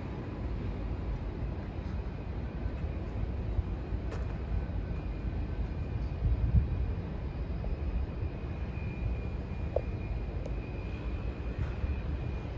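Outdoor background noise: a low, uneven rumble with a faint, steady high tone running through it.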